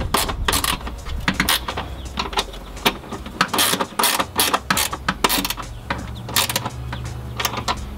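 Ratchet wrench clicking in quick, irregular runs as a bolt is tightened.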